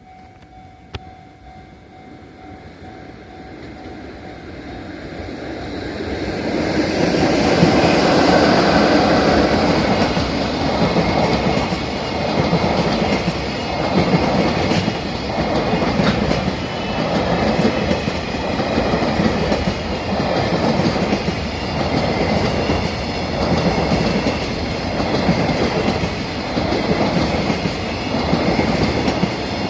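Freight train hauled by an EF66 electric locomotive approaching and passing at reduced speed: the sound grows steadily louder over the first six or seven seconds, then settles into a regular clickety-clack of the wagons' wheels over the rail joints, about one beat a second.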